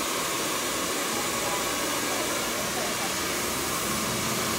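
Hair dryer running steadily: an even, unbroken rushing hiss.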